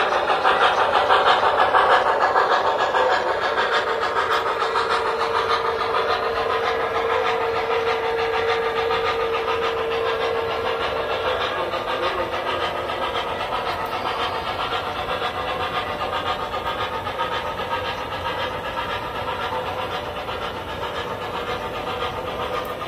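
O gauge model train rolling past on three-rail track: the cars' wheels click and rumble while the steam locomotives' hiss fades as they pull away. A steady tone runs through the first half and cuts off about halfway.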